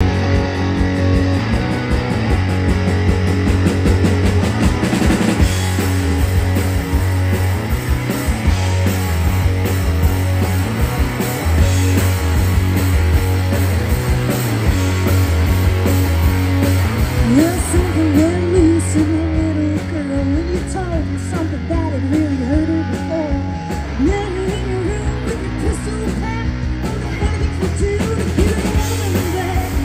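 Live rock band playing: electric guitars, electric bass and a drum kit. A woman's singing comes in a little past halfway.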